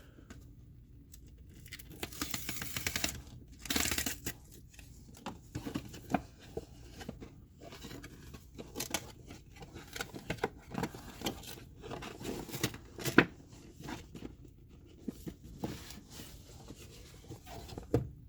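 A boxed card-game set being unwrapped and opened by hand: packaging tears and rustles in two bursts a few seconds in, followed by many small clicks, taps and scrapes of cardboard box parts being handled.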